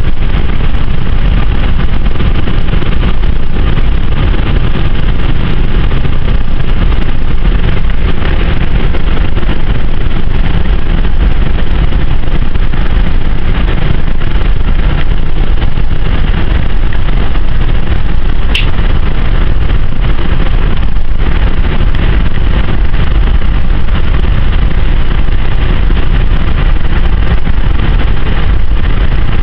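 Steady, loud in-cabin running noise of a 1976 Ford LTD station wagon cruising on the road: V8 engine, tyre and wind noise blended together. A single brief click sounds about 18 seconds in.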